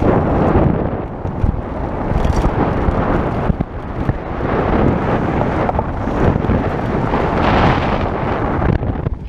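Wind buffeting an action-camera microphone over the rumble of a Specialized SX mountain bike's tyres rolling fast down a dirt trail, dipping briefly near the end.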